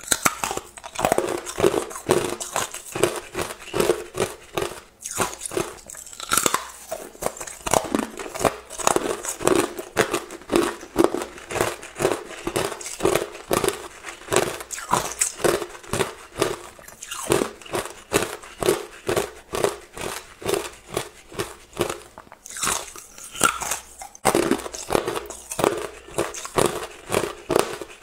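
Hard, clear ice sticks bitten and chewed, a quick, continuous run of sharp cracks and crunches with a few brief pauses.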